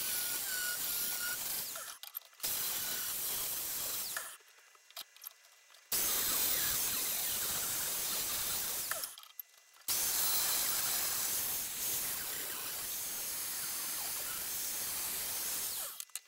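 Angle grinder with a cut-off disc cutting steel rod: a loud, even hiss that comes in four stretches of a few seconds each, stopping and starting abruptly, with short breaks between them.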